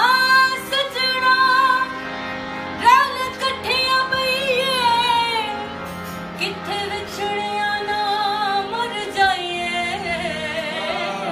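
A woman singing long, ornamented held notes with a wavering pitch, in a Sufi/semi-classical style, over the steady chords of a harmonium.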